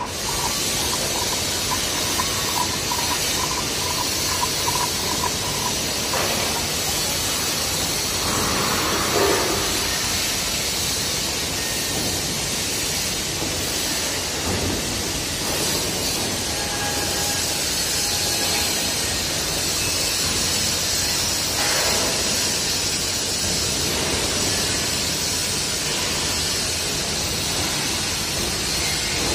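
Electroslag welding in progress on a steel joint: a steady, loud hiss over a continuous industrial background. A faint steady tone sounds for the first few seconds.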